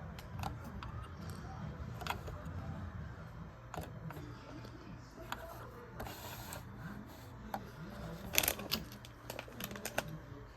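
Small plastic Lego pieces being handled: scattered sharp clicks and rattles, with a quick cluster of clicks about eight seconds in.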